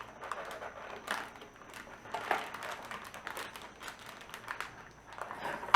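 Handling noise from a mechanical keyboard and its braided cable being picked up and turned over: scattered light clicks and taps over soft rustling, with a sharper knock at the very end.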